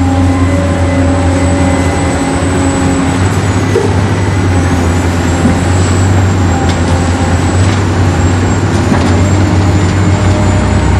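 Remote-control toy construction vehicles running: steady electric-motor noise with a thin high whine that dips briefly in pitch about four seconds in.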